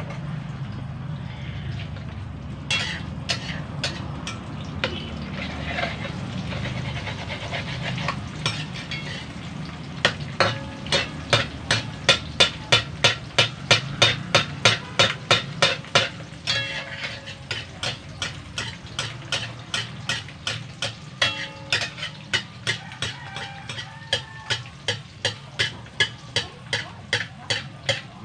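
Metal spatula scraping and tapping against a wok-style frying pan while an egg fries, with a faint sizzle. A few scattered clicks at first, then from about ten seconds in a quick, regular run of strokes at about three a second that eases a little in the second half, over a steady low hum.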